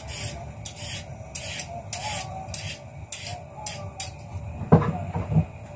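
Hand vegetable peeler scraping down a carrot in quick strokes, about two a second, with a few dull knocks about three-quarters of the way through.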